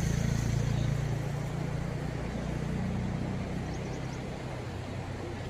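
Low, steady rumble of a motor vehicle's engine, slowly fading.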